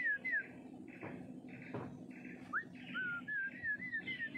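Warbling whistling: a wavering tone that wobbles up and down and climbs in pitch, heard at the start and again from about three seconds in, with a short upward note between. Two sharp knocks about a second apart near the middle, and short chirps repeating in the background.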